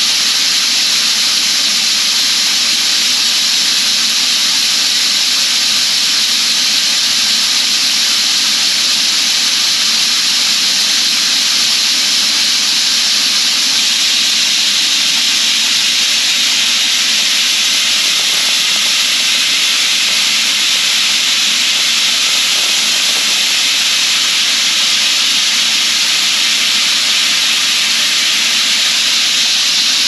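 Shelled field corn streaming from a grain auger's spout into a steel grain bin: a loud, steady hiss of kernels falling onto the bin's spreader.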